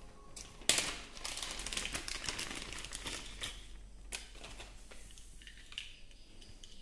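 Clear plastic zip bag crinkling and rustling as it is handled and opened, with a sharp snap just under a second in. After about four seconds the crinkling gives way to sparse, quieter clicks of cables being handled.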